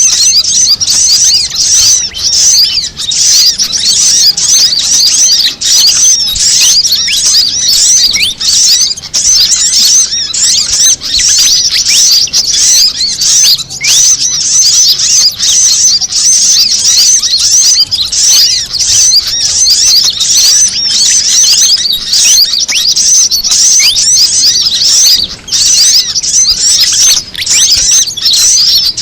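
Dense high-pitched chirping and twittering of several small birds layered together without a break: a bird-luring call track mixing fantail calls with sunbird calls, played to draw small wild birds in.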